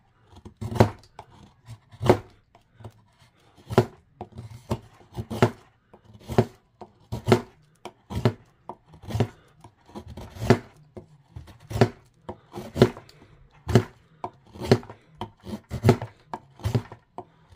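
Veisky full-tang mini bushcraft knife carving shavings off a hard block of wood: a short, sharp cut at each stroke, repeated steadily about once a second.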